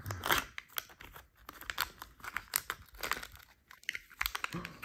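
Foil candy wrapper being peeled open and crumpled by hand: a string of irregular crinkles, crackles and short tearing sounds.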